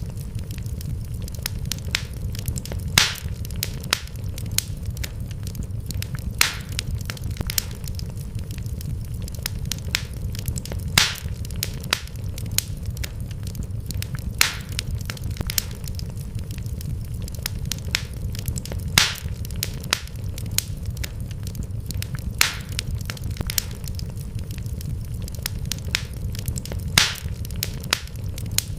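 Wood fire crackling, with a steady low rumble and frequent sharp pops, a louder snap every few seconds.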